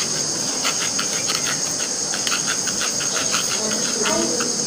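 Spoon scraping and pressing thick mango pulp through a plastic mesh strainer: a run of short, irregular scratchy strokes over a steady high hiss.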